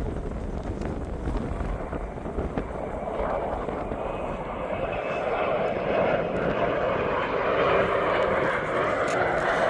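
Regional jet's engines growing louder as the aircraft nears, a steady roar that swells about halfway through. Wind buffets the microphone in the first few seconds.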